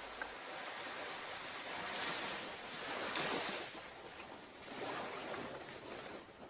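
Ocean waves washing onto a beach, swelling twice: about two to three seconds in and again around five seconds in.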